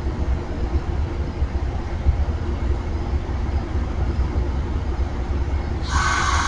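Amtrak passenger train standing at the platform: a steady low rumble, with a hiss starting near the end.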